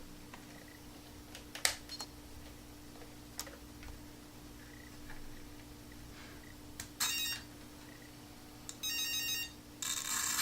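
A few light handling clicks, then three short, high-pitched electronic whines from an RC truck's electric motor and speed controller at about 7 s, 9 s and near the end, the last the longest and loudest, as the truck with its new center driveshaft is tried with a little throttle.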